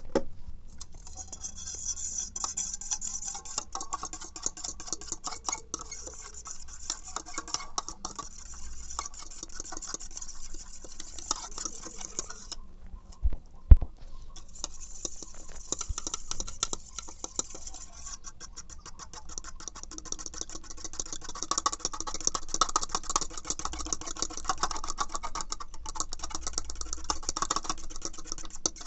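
A utensil clicking and scraping rapidly against a container as eggs are stirred, with a short pause and one sharp knock about thirteen seconds in.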